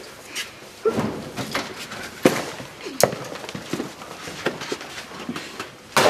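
A few scattered knocks and thuds of a door being handled, with shuffling movement in a small hallway, and a loud bang at the very end.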